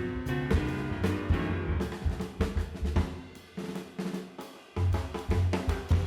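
Background music: a drum fill on a drum kit, a quick run of snare and bass drum hits over bass and other instruments, in a jazz/swing style.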